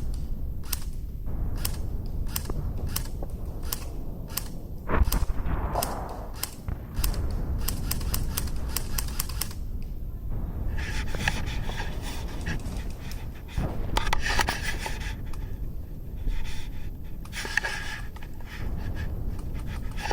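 Airsoft gun firing single shots as sharp clicks, about one and a half a second, then a quicker string of shots near the middle. After that the shots stop and an uneven hissing noise follows.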